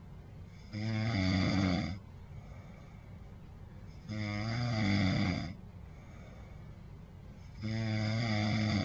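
A sleeping person snoring: three snores, each about a second and a half long, coming about every three and a half seconds, with quieter breathing gaps between them.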